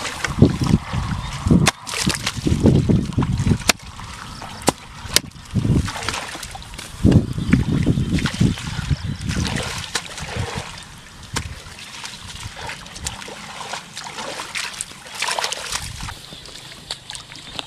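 Shallow water splashing and sloshing in irregular bursts as hands work through it catching fish, with scattered sharp knocks; busier in the first half, then quieter.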